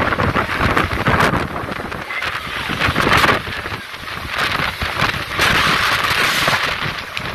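Dust-storm wind gusting hard and buffeting the phone's microphone, swelling and easing in gusts with a short lull about four seconds in.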